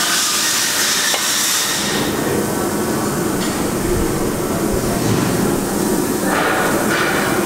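Fentech dynamic balancing machine spinning an SR20 crankshaft with its flywheel bolted on, a steady mechanical running noise as it measures the imbalance. About two seconds in the noise turns lower and fuller, then brightens again near the end.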